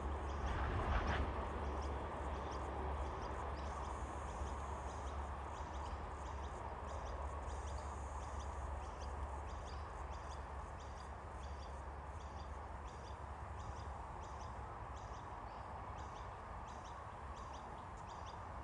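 Outdoor ambience of birds chirping in short, high, repeated notes, over a steady low rumble of wind on the microphone. There is a brief louder rustle about a second in.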